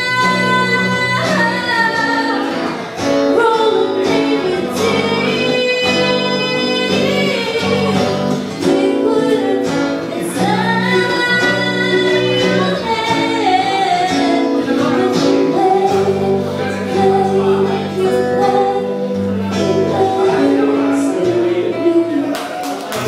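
A woman singing live into a handheld microphone, her voice amplified, over acoustic guitar accompaniment. She holds long, sliding notes over steady chords.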